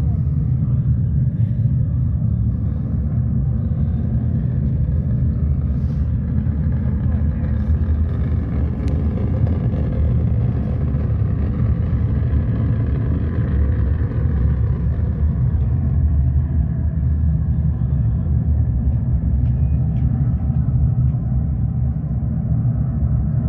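Recorded Saturn V rocket launch, a steady deep rumble just after liftoff, played back loud through an exhibit's loudspeakers.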